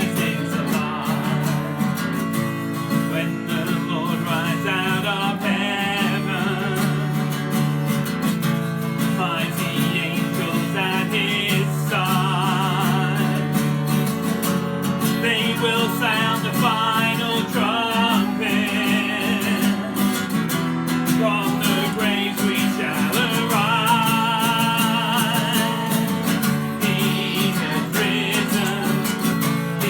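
Worship song music led by a strummed acoustic guitar, with a sung melody over it.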